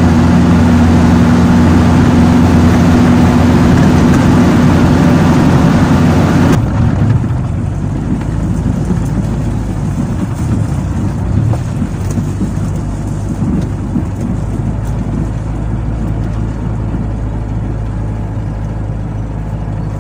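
Renault 4CV's small rear-mounted four-cylinder engine running on the move, heard from inside the cabin. It is loud and steady at first, then drops suddenly to a quieter, lower running sound about six and a half seconds in.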